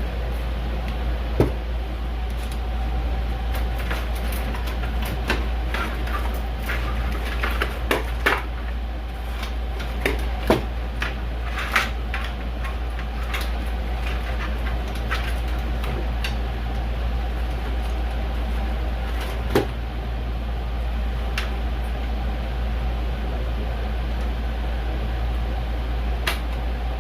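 Scattered clicks and light knocks of computer parts being handled and taken apart, over a steady low hum.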